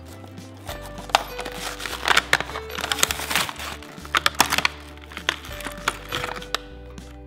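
Cardboard and plastic toy packaging being opened by hand: a run of crinkles, clicks and tearing noises, busiest in the middle, over light background music.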